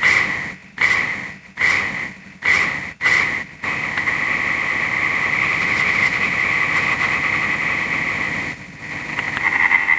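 Sound effect presented as the call of a buffalo sculpin (Enophrys bison): five short calls at one high steady pitch, a little under a second apart, then one long steady call lasting about five seconds, and another call starting near the end.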